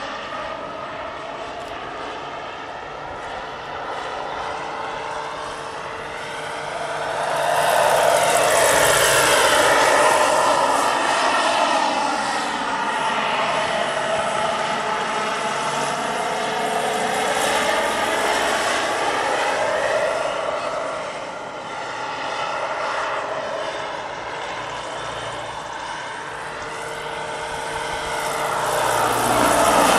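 Giant-scale turbine model AH-64 Apache helicopter in flight: the turbine whine and main rotor sound, its pitch sweeping up and down as it makes passes. It swells loudest about eight to ten seconds in and again near the end as the model comes close.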